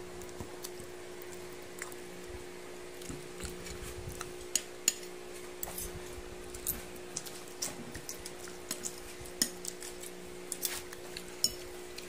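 Metal fork clinking and scraping against a ceramic plate while eating noodles: light, irregular clicks and taps scattered throughout, over a faint steady hum.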